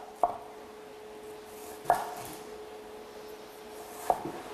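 A small kitchen knife slicing onion on a plastic cutting board: three separate knocks of the blade on the board, about two seconds apart, over a faint steady hum.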